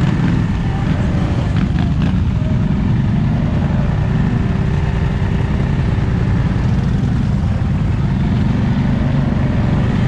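An off-road vehicle's engine running steadily while under way, a loud, even low rumble with no pauses.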